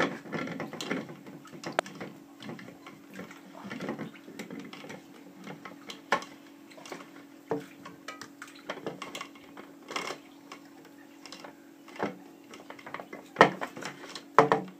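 Clear plastic filter housing of a reverse osmosis unit being turned and locked into its cap by hand: irregular plastic clicks, knocks and rubbing, with a few louder knocks near the end, over a steady low hum.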